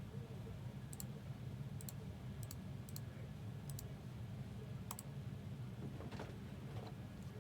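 About six light, sharp clicks of a computer mouse, spaced unevenly through the first five seconds, over a steady low hum. Two fainter soft knocks come near the end.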